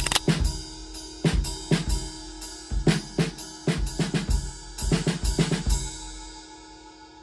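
Improvised drum-kit track, hits in an uneven rhythm that stop about six seconds in, the last of them ringing and fading away.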